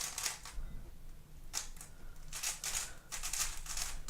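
Plastic 3x3 speedcube being turned quickly by hand: flurries of rapid clicking layer turns with short pauses between them.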